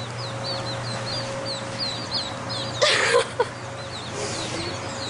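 Chicks peeping: a run of short, high chirps, each falling in pitch, two or three a second, as they squabble over a worm. A brief louder burst of noise comes about three seconds in.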